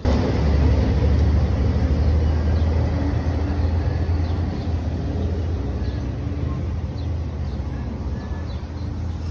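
Gas welding torch flame burning steadily on steel razor blades, a low rumble with hiss as it melts them into a weld bead. It starts abruptly and eases off slightly toward the end.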